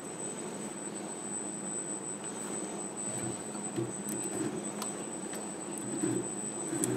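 Internal keyway being slotted on a small Chinese mini lathe: a high-speed-steel cutter in the tool post is stroked through the bore of a pulley held in the chuck, giving a steady scraping with a few soft thuds and light metallic clicks in the second half.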